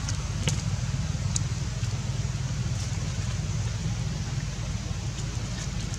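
Steady low rumble, with a couple of faint short clicks in the first two seconds.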